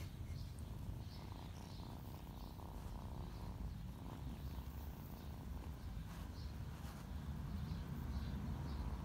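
Kitten purring, a low steady rumble, while being rubbed and played with.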